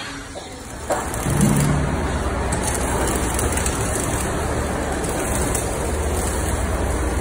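Arc welding on a steel excavator screen-bucket grid: a steady crackling sizzle that starts suddenly about a second in, over a low hum.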